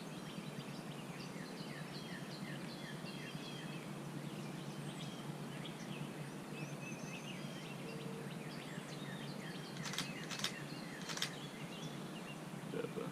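Outdoor ambience of birds chirping and calling in many short high notes, over a steady low hum. A few sharp clicks come about ten to eleven seconds in.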